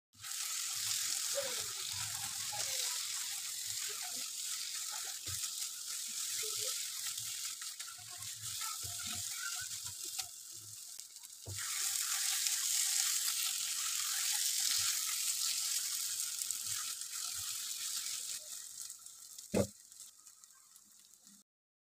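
Shredded chicken and masala sizzling in a non-stick frying pan while a spatula stirs and scrapes it against the pan, with scattered clicks and scrapes. The sizzle eases briefly about halfway, then returns; one sharp knock of the spatula on the pan comes near the end.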